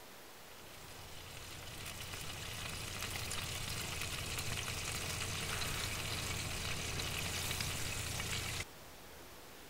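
Sizzling and crackling of a roast chicken in a glass baking dish, with a low hum beneath. It swells in over the first few seconds, holds steady, then cuts off abruptly about a second before the end.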